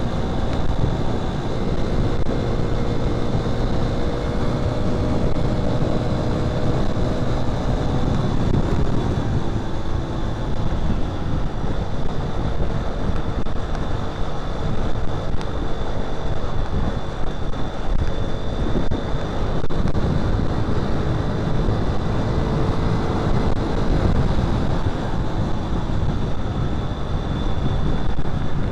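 Motorcycle ride heard from the rider's microphone: wind buffeting the mic in a constant low rumble, with the engine's hum rising and falling underneath and a thin steady high whine.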